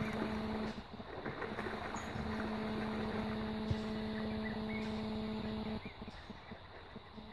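A steady mechanical hum over background noise. The hum drops out briefly about a second in and stops near the end.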